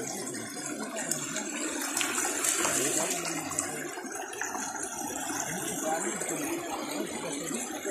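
Shallow creek running over stones: a steady rush of water.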